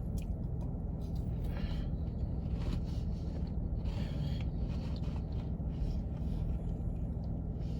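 Chewing a sub sandwich with bread and lettuce close to the microphone: soft, irregular crunching and scraping bites. A steady low hum sits underneath.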